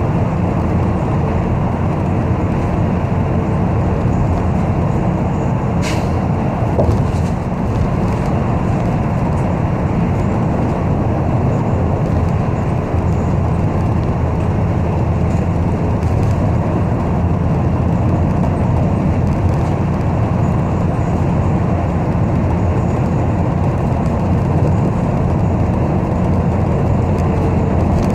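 A city bus driving, heard from inside: a steady, low rumble of engine and road noise, with a brief sharp click about six seconds in.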